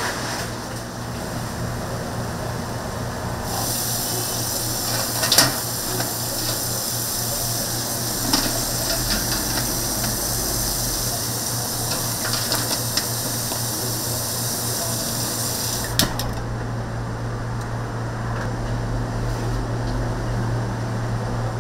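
Chicken deep-frying in a commercial fryer: a steady sizzling hiss over a constant motor hum, with a few clinks. The hiss begins a few seconds in and cuts off suddenly near the end.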